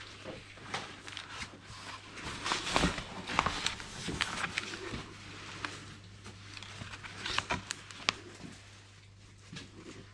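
Pages of a thick paperback guidebook being opened and leafed through by hand: irregular paper rustles and flicks, busiest a few seconds in and again near the end, over a low steady hum.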